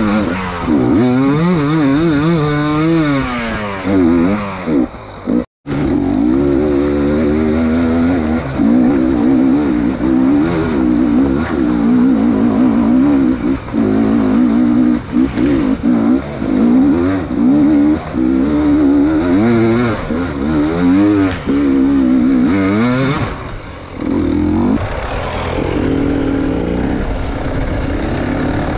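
Enduro dirt bike's engine revving up and down constantly, its pitch rising and falling every second or so, as the bike is worked at low speed over slippery roots and rocks. The sound cuts out for an instant about five seconds in.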